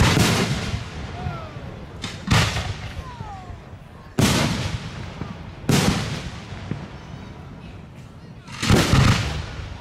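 Aerial firework shells bursting overhead: five loud bangs spaced one to three seconds apart, each trailing off in a fading rumble of echo.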